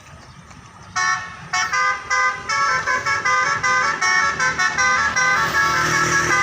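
Basuri telolet bus horn playing a quick melody, starting about a second in. Its tones step rapidly from note to note.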